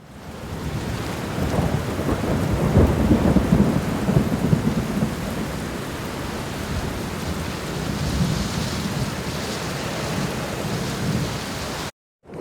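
Loud, rumbling, rushing noise of wind buffeting the microphone, mixed with a hiss like water or rain. It fades in at the start and cuts off abruptly near the end.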